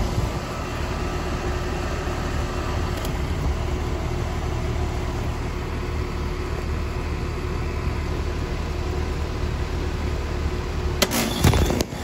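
1998 Heil 9000 heat pump outdoor unit running: a steady hum from the compressor and condenser fan. Near the end, a short burst of rustling and knocks close to the microphone.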